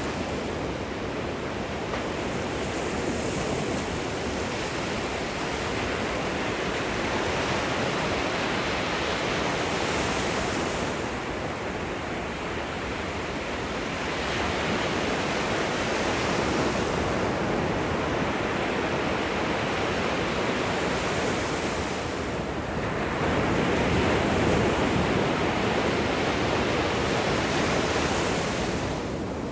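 Gentle surf washing in at the shoreline, a steady hiss of breaking and receding water that swells and eases in three or four slow surges.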